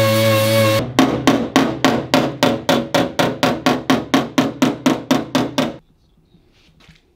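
Body hammer striking on a dolly against the steel rear fender of a 1967 Porsche 911: a fast, even run of metal knocks, about four a second and some twenty in all, that stops suddenly about six seconds in. This is hammer-and-dolly work to smooth the shrinkage dip left along a butt-welded seam.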